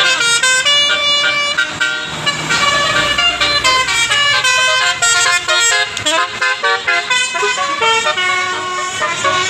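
Bus telolet horn of the Basuri type playing a fast melody, its notes jumping in pitch several times a second without a break.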